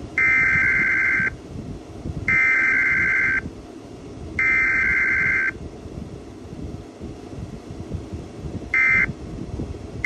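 Emergency Alert System SAME data tones for a required weekly test: three identical bursts of warbling two-pitch data about a second long each, then after a pause of about three seconds two short bursts near the end, the start of the end-of-message code. A steady low rumble runs underneath.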